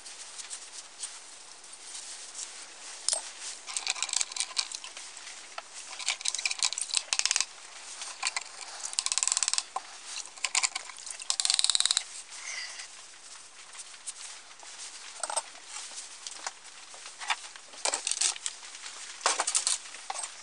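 Irregular clinks, taps and scraping of small rusty cast-iron camp-stove parts being handled, wiped with a rag and set down, with louder rubbing bursts about nine and twelve seconds in.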